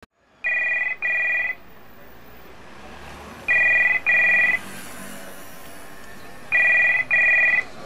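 Telephone ringing with a double-ring pattern, three pairs of rings about three seconds apart: an incoming call that has not yet been answered.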